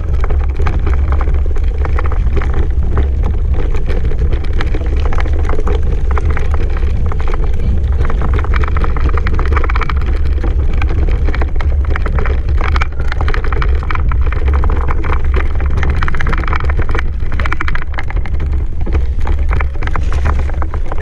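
Mountain bike riding fast over a rough forest trail: a heavy, steady wind rumble on the microphone, with dense, irregular rattling and crunching from the tyres and the jolted camera mount.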